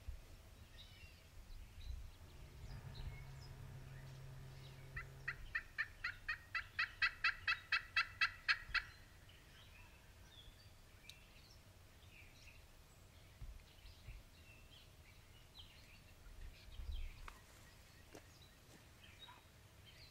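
Wild turkey calling: a quick run of about twenty notes, roughly five a second, growing louder over nearly four seconds, then stopping. A faint low drone is heard just before the calls begin.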